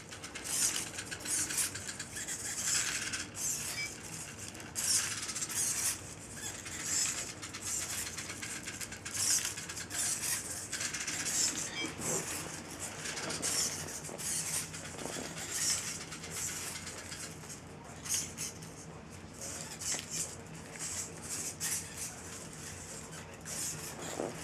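Servo-driven quadruped robot dog walking on carpet: short bursts of servo whine and light clattering from its legs, about one a second.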